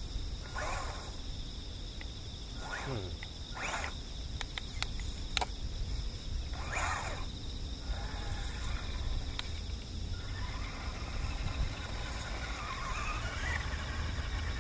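A small RC car's electric motor whines in short bursts as it is driven around, with one falling sweep near three seconds in and a longer wavering run near the end. Under it are a steady high drone and a low rumble of wind on the microphone.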